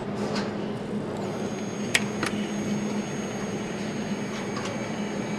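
Steady factory machinery hum on a motorcycle production line, with two sharp clicks about two seconds in and a faint high whine through most of it.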